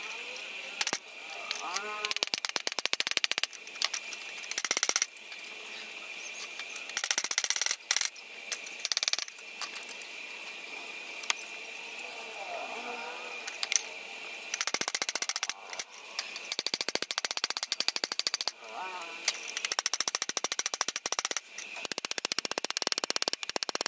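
Metalwork on a stainless steel tube railing: repeated bursts of rapid metallic clicking and clatter, each a second or two long, between quieter pauses.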